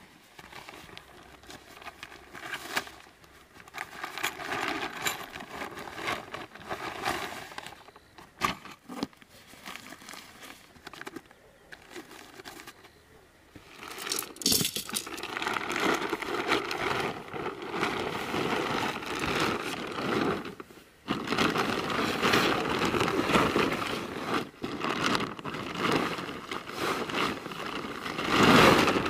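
Plastic bags and nylon tent fabric rustling and crinkling as camping gear is handled. About halfway through the rustling grows louder and denser as the tent is shaken out of its bag and spread on the ground.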